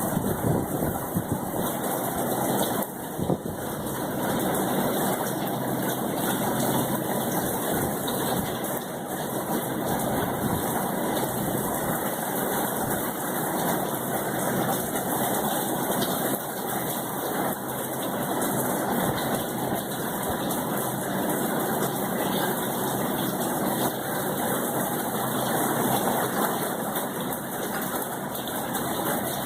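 Heavy rain from a hurricane falling steadily, an even rushing hiss that holds without a break.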